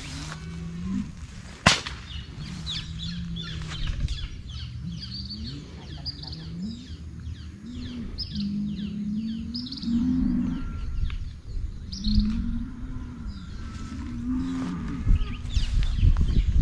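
Cattle mooing again and again in low, drawn-out calls, with many small birds chirping in quick falling notes. One sharp crack comes about two seconds in.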